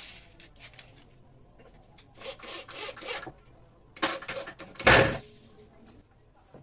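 Handling noises on a wooden bed panel: a rubbing scrape about two seconds in, a sharp knock about four seconds in, then a heavy thump, the loudest sound, about five seconds in.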